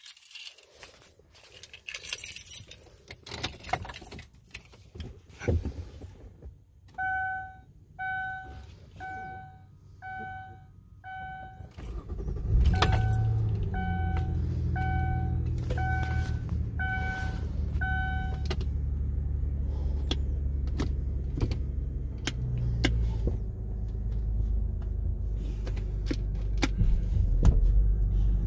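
Keys jangling at the ignition of a 2002 Lincoln LS, then a dashboard warning chime beeping about once a second. About twelve seconds in the 3.0-litre V6 starts and settles into a steady idle while the chime carries on for several more seconds and stops.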